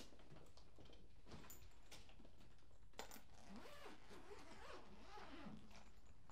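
Faint handling of a hard-shell wheeled suitcase: a few light clicks and knocks, then an uneven rasping sound lasting about two seconds from about three seconds in.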